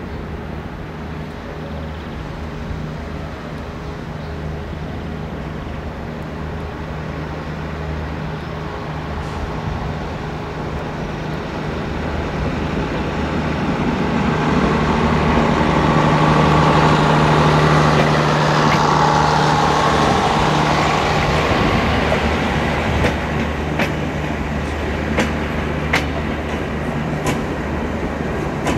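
Siemens Hellas Sprinter electric locomotive hauling a passenger train, approaching and passing close by. Its steady hum grows louder to a peak about halfway through. Then come regular clicks of the coaches' wheels over the rail joints as the carriages roll past.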